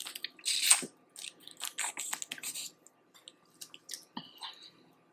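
Close-up eating sounds of boiled crawfish in garlic butter sauce: irregular wet smacks, sucks and clicks of chewing, busiest in the first half and trailing off near the end.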